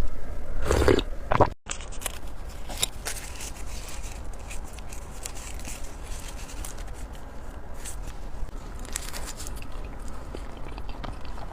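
Close-miked eating sounds: chewing and biting with scattered small wet clicks and crackles. The sounds are louder in the first second and a half, then cut to a quieter stretch of soft mouth clicks over a low hum.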